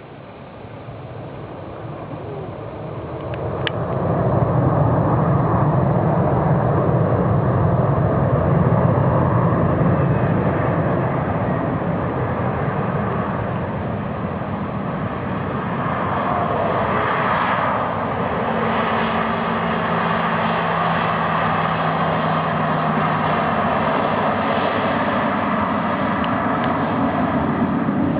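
Jet engines of a Boeing 737-500 airliner landing, a steady roar that swells over the first few seconds and then stays loud.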